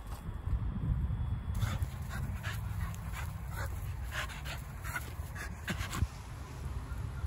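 Terrier-mix dog panting hard in quick breaths, about two or three a second, after running and jumping. A low rumble runs underneath.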